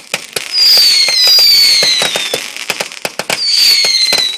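Fireworks going off: a rapid string of sharp bangs and crackles with shrill whistles that fall slightly in pitch. The loudest whistling comes about half a second in and again near the end.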